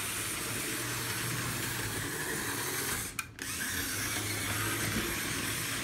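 HO scale model diesel locomotive's small electric motor and gearing running around the track: a steady whir with a low hum. The sound drops out briefly about three seconds in.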